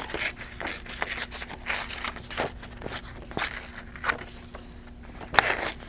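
A sheet of paper being torn by hand in a run of short, uneven rips, with the loudest tear near the end.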